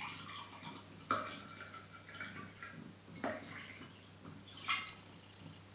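Sake being poured from a large glass bottle into a drinking glass: liquid splashing and gurgling in uneven spurts as the glass fills.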